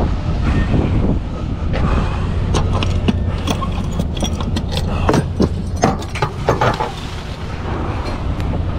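Heavy truck's diesel engine running steadily, with a string of sharp clanks and rattles through the middle.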